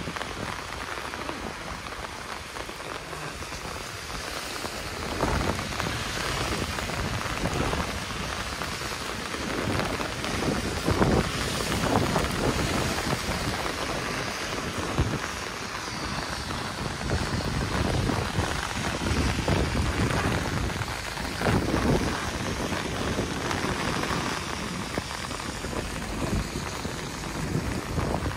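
Rain falling on wet paving, a steady hiss, with several louder low rumbles that swell and fade along the way.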